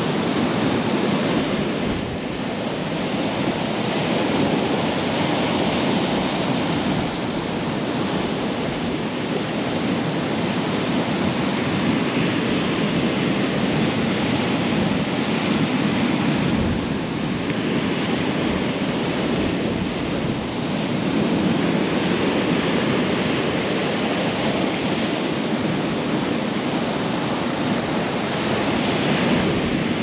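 Ocean surf breaking against rocky cliffs, a continuous rushing wash that swells and eases every few seconds as successive waves come in.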